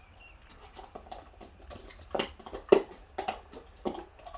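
German Shepherd dogs chewing at and knocking around capped treat containers, trying to break them open: irregular crunches, clicks and clatters, the loudest knock a little past the middle.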